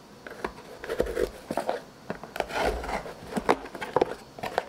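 A small cardboard parcel box being opened by hand: the cardboard rubbing and rustling, with irregular light knocks and taps.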